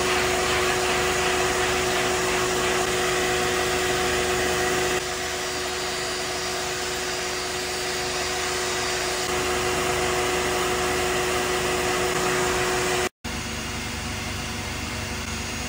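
A vacuum motor running steadily with a whine; its tone shifts about five seconds in, and the sound drops out for an instant near the end.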